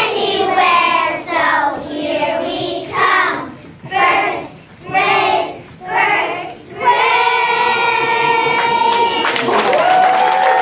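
A group of young children singing together in short phrases, ending on a long held note from about seven seconds in. Near the end, clapping starts.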